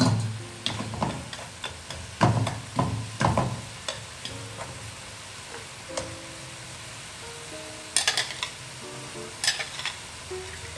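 Metal turner scraping and knocking against a nonstick pot while stirring pork ribs that sizzle in it as they brown; the stirring is busiest in the first few seconds, with a few sharp scrapes later on.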